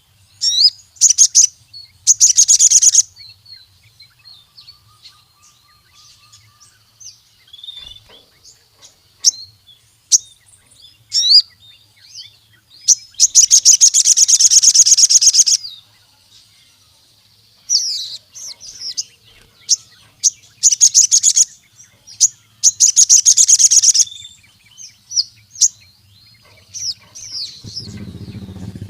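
A sogon (crimson sunbird) singing: bursts of short, sharp high chirps and quick sweeping notes, broken by several long, fast, rattling high trills, the longest about two and a half seconds. A low hum comes in near the end.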